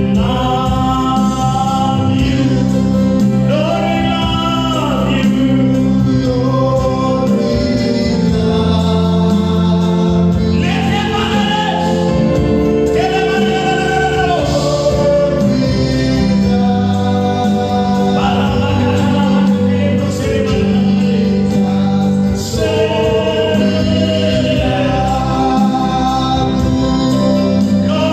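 Gospel music: a group singing worship to keyboard accompaniment, sustained chords under the melody.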